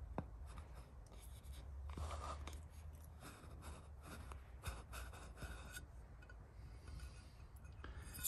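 Faint rubbing and scraping of a metal lens cap being worked off the front end of a refractor telescope tube, with a few small clicks.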